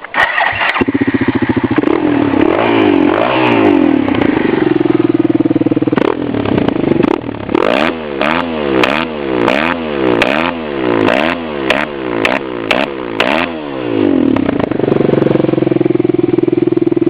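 Suzuki SV650's 645 cc V-twin through an aftermarket MIVV exhaust firing up, settling to idle, then blipped hard about nine times in quick succession with crackles on the overrun, before dropping back to a steady idle near the end.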